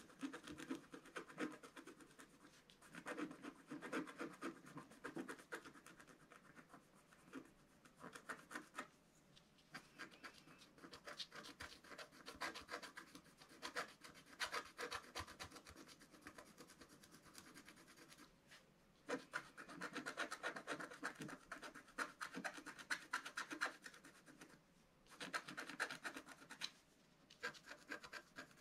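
Wooden-handled scratch stylus scraping the black coating off a scratch-art card in many quick short strokes, coming in runs with a few brief pauses.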